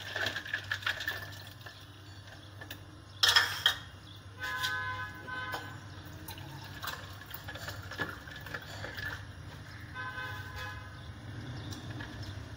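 A steel spoon clinks against a plastic jug as pink milk sharbat is stirred, then the drink is poured from the jug into a clay cup with a steady liquid pour. A sharp loud noise comes about three seconds in, and two short buzzing tones come about five seconds apart.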